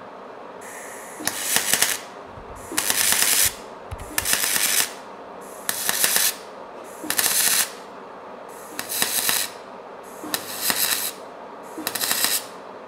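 Electric arc welding on a stainless steel exhaust downpipe, fixing the wideband lambda sensor bung in place. The welding runs in short bursts, eight of them, each well under a second and about a second and a half apart, with a crackling hiss while the arc is lit.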